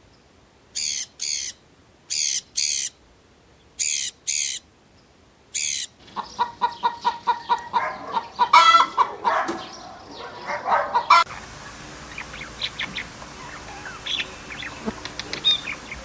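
Calls of several different birds in succession. First come high, sharp calls in pairs, repeated about four times with silence between. About six seconds in, a dense run of rapid, lower repeated calls takes over, and after about eleven seconds it gives way to scattered short chirps over a faint background.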